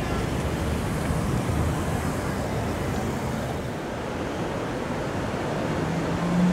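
Tokyo Metro 7000 series electric train running, a steady rumbling, rushing noise; near the end a low steady hum comes in as a train draws into the station platform.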